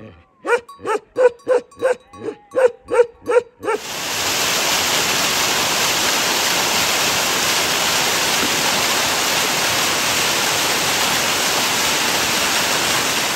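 A large dog barks rapidly, about three barks a second. A little under four seconds in the barking stops suddenly and the steady rush of a small waterfall splashing down a rock face takes over.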